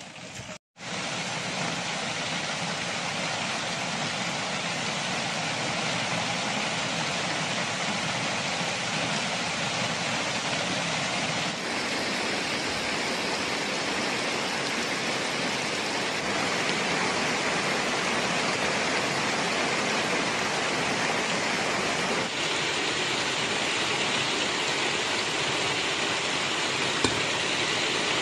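Heavy rain falling, an even, steady hiss that starts abruptly about a second in after a brief drop-out.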